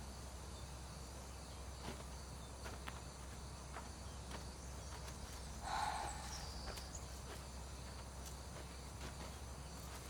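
Quiet outdoor ambience of steady high insect chirring, with a few faint clicks and a brief, slightly louder sound about six seconds in.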